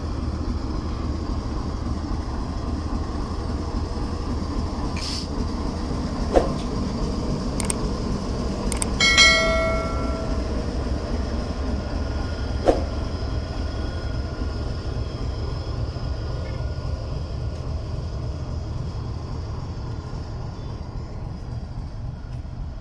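GEU-40 diesel-electric locomotive idling with a steady low rumble. About nine seconds in, a short horn blast sounds, the loudest thing here, with a brief hiss and a couple of sharp clicks around it.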